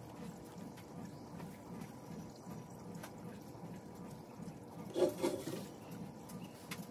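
Small paint roller being worked through wet black paint in a tray, a wet, liquid rolling sound that pulses evenly, about three times a second. About five seconds in there is a louder knock as a glass aquarium tank is handled on the plywood board.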